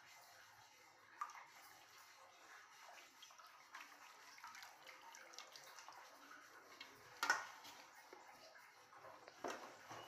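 Faint water sloshing and dripping as a raw goat intestine is worked and lifted by hand out of a steel bowl of water, with a sharper wet splash or slap about seven seconds in and another near the end.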